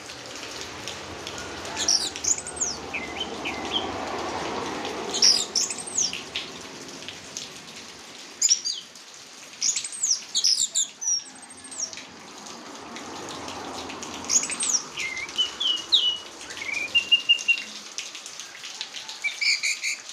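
Orange-headed thrush singing: repeated phrases of high, sweeping whistles and chirps every few seconds. A soft rushing noise swells and fades twice underneath.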